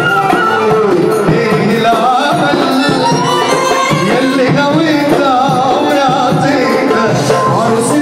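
Live band music: a male singer with a microphone over keyboard and drums, loud and continuous, with a wavering, ornamented melody line.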